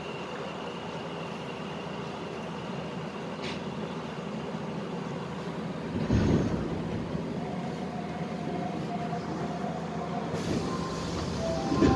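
Nagoya Municipal Subway 6000 series train running, heard from inside the car: a steady rumble and hiss. A heavy low thump comes about six seconds in, a faint steady whine follows, and there is another knock near the end.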